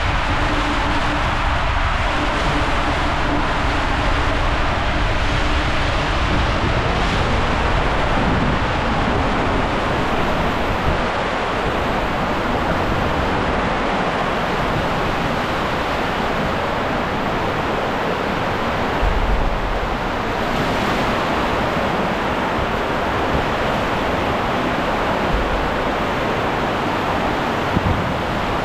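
Steady rush of running water along a water slide, with no breaks or separate impacts.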